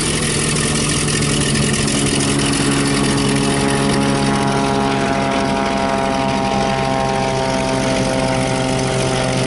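Light propeller aircraft's piston engine droning steadily, its pitch dropping slightly in the second half.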